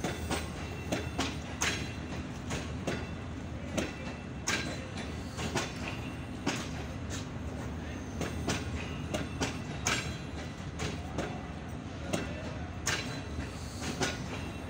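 Green Line Express passenger coaches rolling past on the rails: a steady low rumble with sharp, irregular clicks of the wheels running over rail joints, a few each second.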